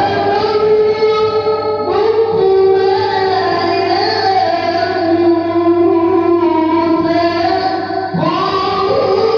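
A child's voice reciting the Quran in the melodic tilawah style, with long held, ornamented notes. A new phrase begins about two seconds in and another near the end.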